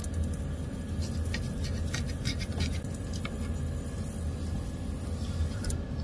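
Food being cut with a utensil: scattered light scrapes and taps over a steady low hum.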